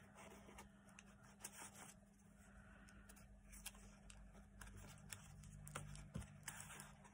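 Faint rustling and light clicks of paper and card being handled as a tag is worked in and out of a journal pocket, over a low steady hum.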